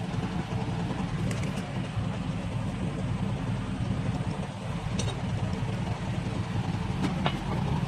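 Recovery tow truck's engine idling, a steady low running sound with no change in speed, with a couple of faint ticks.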